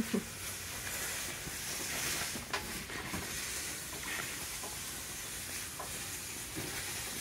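Hands rustling and handling a padded fabric bag while pulling a cable through it, with a couple of light knocks, the sharpest right at the start.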